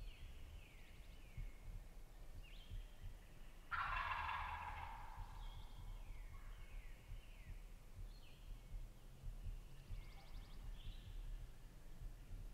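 A wild turkey gobbles once, about four seconds in, the loudest sound here. Small birds call throughout with short falling chirps.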